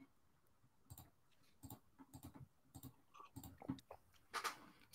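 Near silence with faint, scattered short clicks and small noises.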